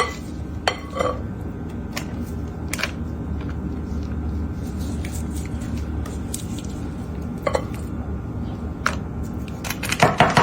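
Scattered clinks and taps of kitchen utensils against dishes, with a busier run of knocks near the end, over a steady low hum.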